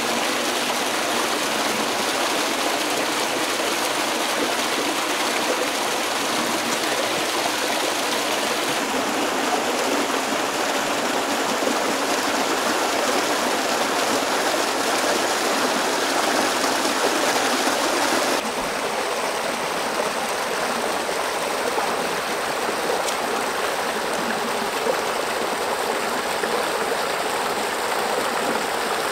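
Shallow rocky stream rushing and splashing over stones and small cascades, a steady, dense water noise. Its tone shifts slightly about 9 and 18 seconds in.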